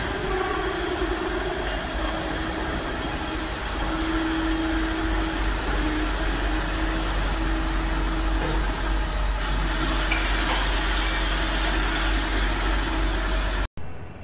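Multi-station rotary turntable machine with motor-driven spindle heads running: steady mechanical noise with a low hum and a mid-pitched whine that comes and goes. Near the end the sound cuts off sharply and comes back much quieter.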